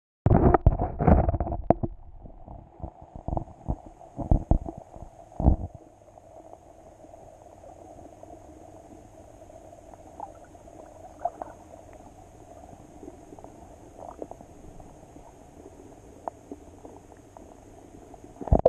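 Sound picked up by a submerged camera in its waterproof housing: loud bumps and sloshing for the first five seconds or so, then a steady muffled underwater murmur with occasional faint ticks.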